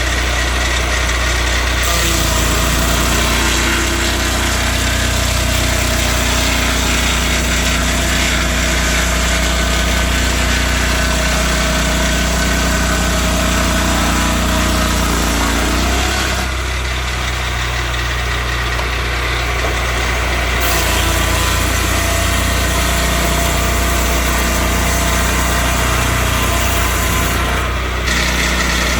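Portable swingblade circular sawmill running with its engine at steady speed. The upper part of the sound thins for a few seconds past the middle, then comes back.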